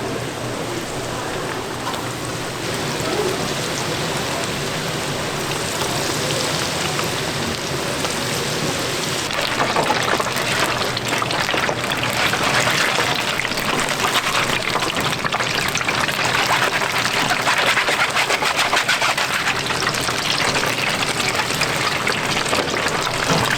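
Battered giant chili peppers deep-frying in hot oil, a steady crackling sizzle that grows louder and denser about ten seconds in.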